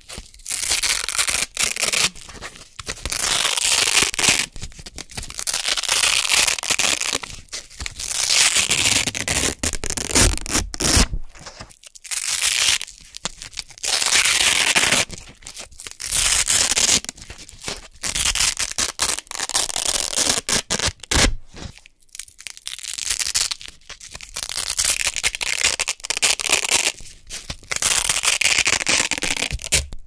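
Velcro hook-and-loop circles pulled apart over and over close to the microphone: loud, crunchy ripping peels, each a second or two long, with short pauses between them.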